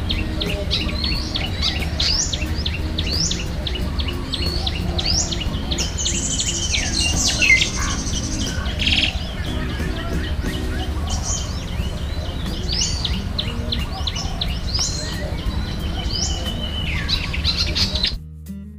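Birds chirping: one bird repeats a short sweeping call about once a second, with a denser high trill for a couple of seconds near the middle, over a steady low rumble. The sound cuts off abruptly just before the end.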